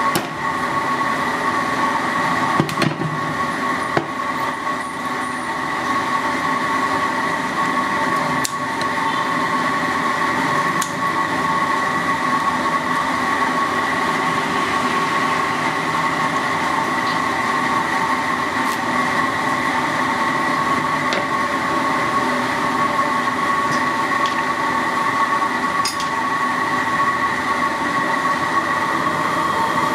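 A steady mechanical drone with a constant high whine, unchanging throughout, with a few light knocks.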